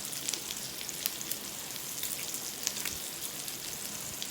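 Beef sizzling and crackling on a hot grill pan, a steady hiss dotted with fine pops.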